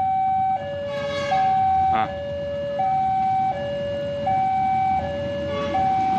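Two-tone electronic warning siren alternating between a high and a low tone, each held about three-quarters of a second, typical of a railway level-crossing alarm sounding as a train approaches.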